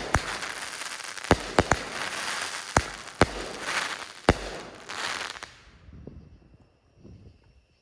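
A 200-gram multi-shot fireworks cake firing its last shots: a series of sharp bangs over dense crackling from the crackling tails. The crackle dies away about six seconds in, leaving a faint steady insect chirr.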